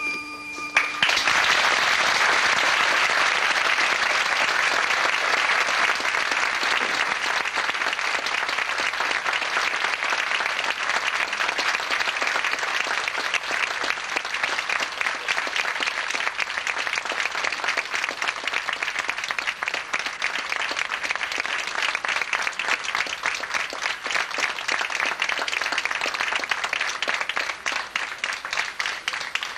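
Audience applauding, a dense steady clapping that breaks in as the orchestra's last notes stop about a second in, and eases off near the end.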